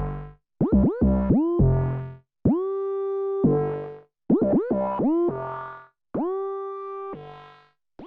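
MS-20-style analog synthesizer playing a repeating phrase: each higher note swoops quickly up in pitch into a held tone, answered by shorter, lower, buzzier notes, about one phrase every two seconds.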